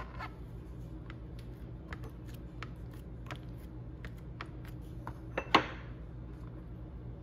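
Slotted wooden spoon pressing and tapping a dried Roma tomato half flat on a plastic cutting board: scattered light clicks and taps, with one louder knock about five and a half seconds in. A low steady hum runs underneath.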